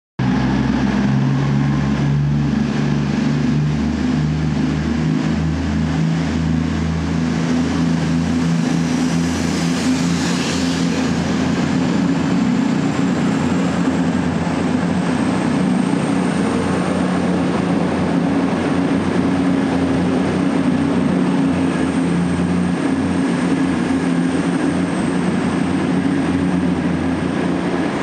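CrossCountry Voyager diesel-electric multiple unit running into the platform, its underfloor diesel engines droning steadily. The engine notes shift over the first several seconds, a rushing swell comes about ten seconds in as the carriages pass, and a thin high whine holds from about halfway.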